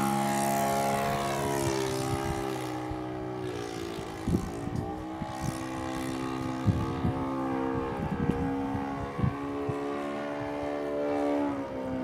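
Enya 120 glow engine of a radio-controlled Carl Goldberg Ultimate biplane running in flight: its pitch falls over the first few seconds as it pulls away from a low pass, then holds steady at a distance, dipping briefly near the end. A few brief thumps about four to nine seconds in.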